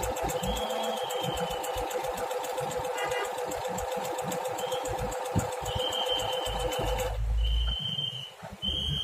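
Singer Stylist 9100 digital sewing machine running steadily with a fast, even stitch rhythm as it sews a one-step buttonhole automatically, then stopping by itself about seven seconds in when the buttonhole is finished.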